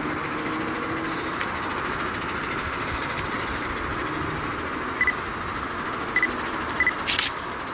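Distant 15-inch-gauge steam locomotive and train approaching along the line, heard as a steady running noise, with a few short high chirps in the second half and a sharp click near the end.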